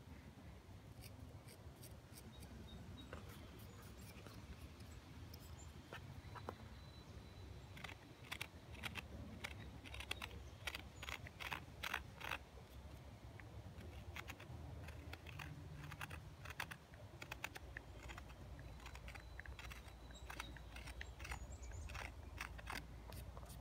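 Knife blade paring small cuts into a block of dry trembling aspen: a faint run of short, crisp cutting clicks, thickest about a third of the way in, over a low rumble.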